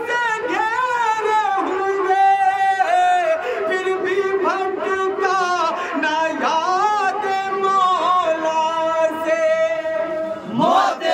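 A solo voice singing a Muharram manqabat, an Urdu devotional poem mourning Husain, in long held notes ornamented with glides up and down in pitch.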